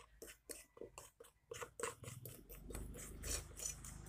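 Metal spoon stirring and scraping a grainy coffee scrub mixture in a stainless steel bowl: a run of small scrapes and clicks that grows busier about halfway through.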